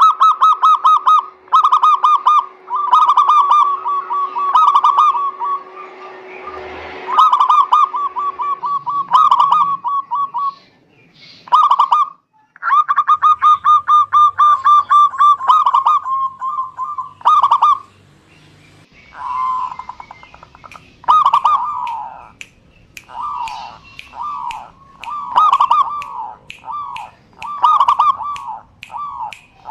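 Zebra dove (perkutut) singing: phrases of rapid, trilled cooing notes, repeated with short pauses. A faint steady hum runs under the song for the first several seconds.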